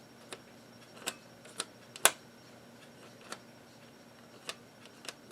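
Scattered keystrokes on a computer keyboard: about seven separate clicks in five seconds, the loudest about two seconds in.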